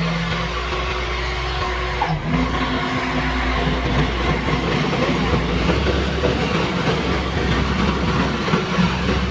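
Kubota rice combine harvester running steadily, with a continuous engine drone and machine noise; the pitch of its hum shifts about two seconds in.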